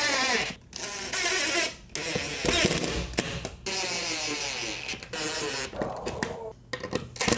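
Power drill driving Phillips screws into the desktop: the motor whine speeds up and slows down in several short runs with brief pauses between them.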